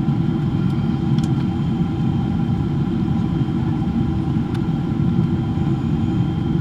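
Steady cabin noise inside a Boeing 777-300ER in flight: a dense low rumble of airflow and engine noise, with a few faint steady tones above it. Two faint clicks, about a second in and near the middle.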